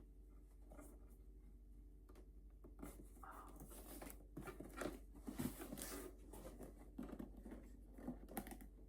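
Faint rustling and light taps of a bag's packaging being handled as the box is opened, with scattered soft scuffs from about three seconds in.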